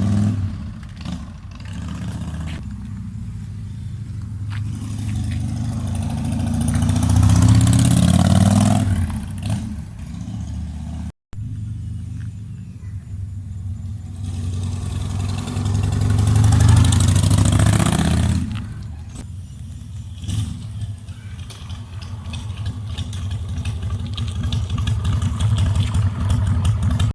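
Carbureted Harley-Davidson Sportster V-twin warming up: the revs climb slowly and drop back to idle, twice, with a short break about eleven seconds in.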